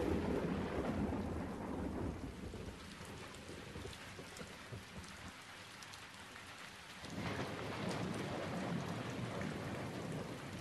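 Rain falling with thunder rumbling: a rumble sets in suddenly at the start and fades, and a second one swells about seven seconds in.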